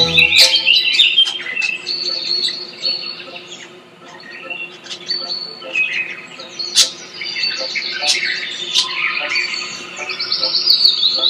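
Small woodland songbirds chirping and singing, many quick high calls overlapping, with a lull about four seconds in.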